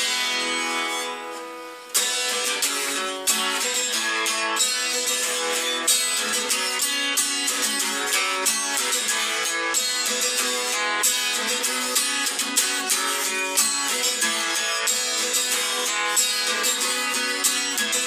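Acoustic guitar strummed, no singing. A chord rings and fades for about two seconds, then the strumming comes back in sharply and keeps a steady rhythm.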